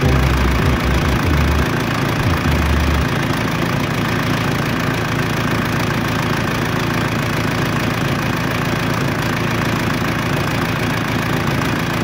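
Case 580 Super K backhoe's diesel engine idling steadily, heard close up in the engine bay, with a few low bumps in the first three seconds.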